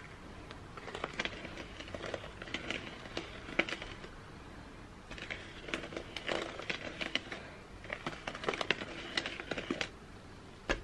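Mixing utensil scraping and clicking against a plastic mixing bowl as thick chocolate brownie batter is stirred. It comes in three spells of quick strokes with short pauses between them.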